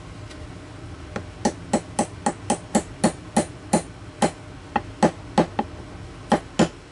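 Small hammer tapping a punch to drive a Dawson fiber-optic rear sight sideways into a CZ SP01 pistol slide's dovetail. About twenty sharp taps come at roughly four a second in short runs with brief pauses, starting about a second in.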